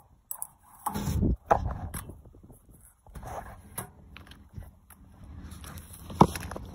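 Footsteps on an asphalt road edge, with the rustle of a hoodie and a mailed parcel being handled; irregular bursts of noise and a sharp knock about six seconds in.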